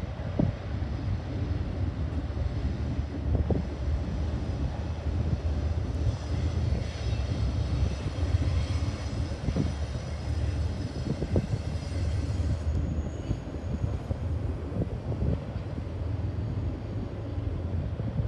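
Double-stack intermodal freight train rolling across an overpass: a steady low rumble with occasional knocks. A high, many-toned whine rises over it midway through and cuts off suddenly about six seconds later.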